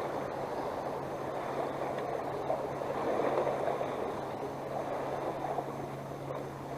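Water gurgling and lapping with a steady low hum underneath.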